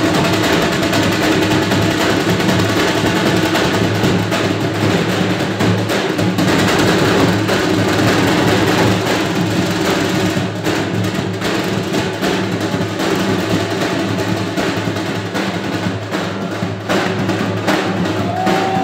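Dhol drums beaten in a fast, continuous rhythm, loud and unbroken.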